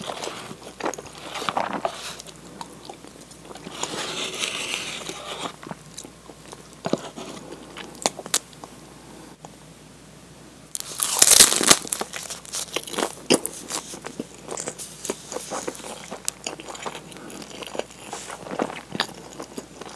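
Close-up eating sounds: a spoon scraping a paper cup, biting and chewing, then a loud crinkling of the plastic film as a tuna-mayonnaise hand-rolled sushi is unwrapped about eleven seconds in, with smaller crinkles and clicks after.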